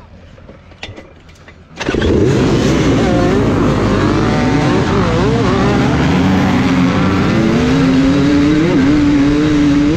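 Many enduro motorcycle engines start up together about two seconds in and rev hard as the bikes leave the start line. The nearest bike's engine climbs in pitch as it pulls away and settles at a steady high rev near the end.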